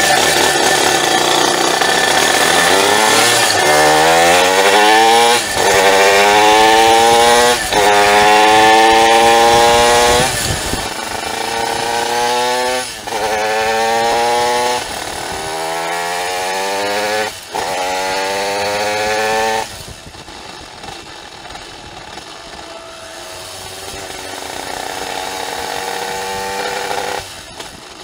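Simson S51 moped with a tuned 85 cc reed-valve two-stroke cylinder (Tassinari VForce3 reed block, about 25 hp) accelerating hard through the gears. The pitch climbs in each gear and drops at each upshift, about every two seconds. After about twenty seconds the throttle eases and the engine runs quieter and steadier at part throttle, dropping off near the end.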